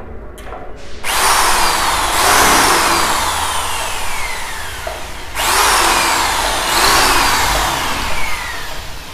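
Electric hand drill with a twist bit boring pilot holes into a plywood door edge through a steel L hinge's screw holes. The drill starts about a second in and runs in two stretches with a short dip between them, its motor whine falling in pitch as the bit bites into the wood.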